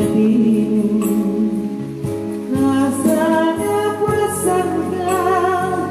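Music with a singing voice: a melody of held, wavering notes over a steady accompaniment.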